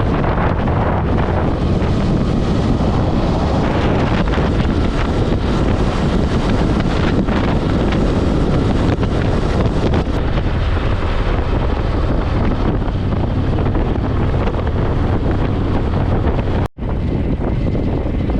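Heavy wind buffeting on the microphone of a moving motorcycle, over the steady low running of the 2024 Harley-Davidson Street Glide's V-twin engine at cruising speed. The sound cuts out for a split second near the end.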